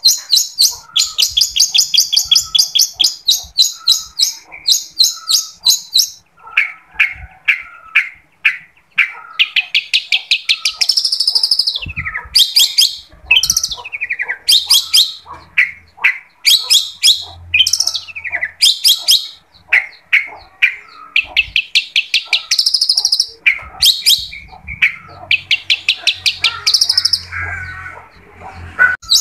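Long-tailed shrike (cendet) singing: fast runs of short, scratchy repeated notes broken by varied sweeping phrases, with brief pauses between bouts.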